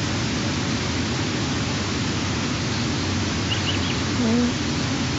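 Steady hiss on an outdoor nest-camera microphone. About three and a half seconds in there are three faint high chirps, and just after four seconds a short low call, typical of the quiet sounds a brooding eastern imperial eagle makes at the nest.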